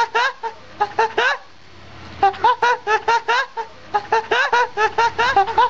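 Hen clucking in quick short calls, about four a second, with a brief pause about a second and a half in.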